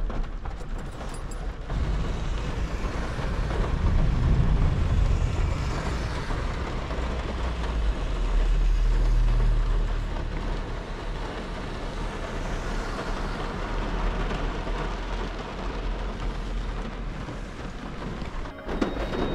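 Ford van driving, heard from inside the cabin: a steady low engine and road rumble that swells about four seconds in and again around eight to ten seconds.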